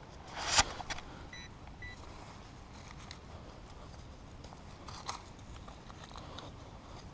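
A brief rustling scrape about half a second in, then two short, faint electronic beeps from a metal-detecting pinpointer probing the dig hole for the target. A small knock comes near five seconds.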